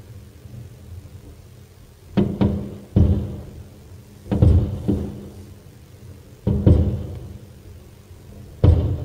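Aerial firework shells bursting with sharp booms, each trailing off in a long echo. They come in quick clusters of two or three about every two seconds.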